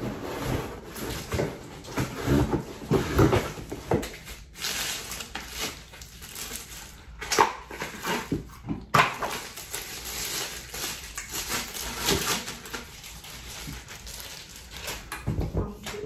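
Packaging rustling and crinkling while a vacuum wand and parts are pulled out of a cardboard box, with scattered knocks and clicks of the parts being handled.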